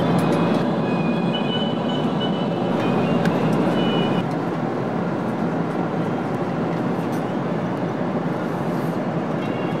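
Steady cabin noise of a Boeing 777-200 airliner in flight: an even rush of airflow and engine noise, easing slightly about four seconds in.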